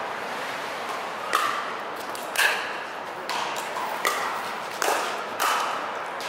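Pickleball paddles hitting a plastic pickleball back and forth in a rally: a string of about six sharp pops, one every second or less, starting about a second in.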